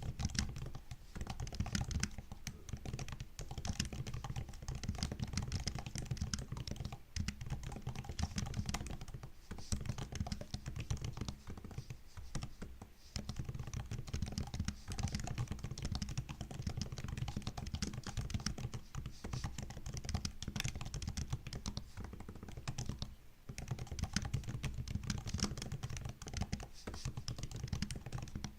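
Continuous fast typing on a MacBook laptop keyboard: a dense run of light key clicks and taps, with a few brief pauses.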